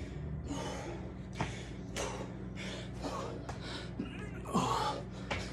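Hard, rapid breathing from a man doing eight-count bodybuilder burpees: short huffing exhales about once a second, a few sharp knocks as hands and feet hit the mat, and a short voiced grunt about four and a half seconds in, over a steady low hum.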